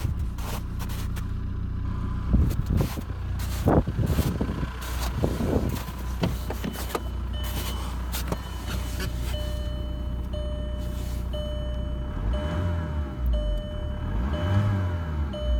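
Volkswagen ALH 1.9 TDI diesel engine running steadily; the turbo has a bad bearing that lets oil past. From about seven seconds in, a car's electronic warning chime beeps about once a second over it.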